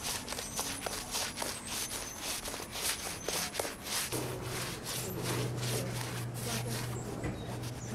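Paintbrush scrubbing paint onto a brick wall in quick, scratchy strokes, several a second. A steady low hum starts about four seconds in.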